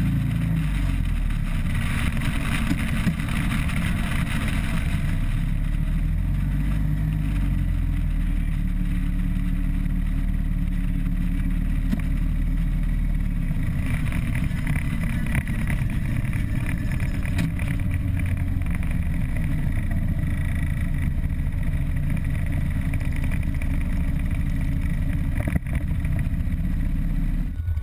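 Harley-Davidson Road Glide Custom's V-twin engine running while riding, heard close from a bike-mounted camera with wind rushing past; the engine note steps up and down a few times as the rider changes speed.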